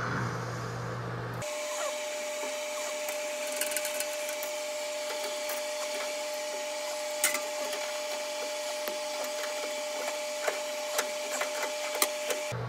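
Wrenches clicking and clinking on the brass flare nuts of a new TXV as they are tightened, with a few sharper metal clinks standing out. A steady mid-pitched hum starts abruptly about a second and a half in and runs underneath.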